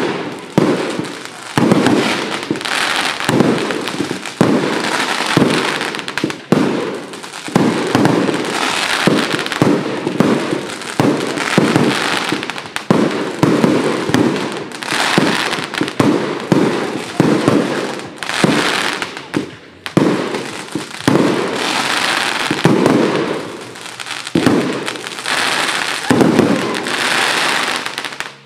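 Fireworks firing in a continuous barrage: loud bangs one after another, about one or two a second, as from a firework battery going off shot after shot.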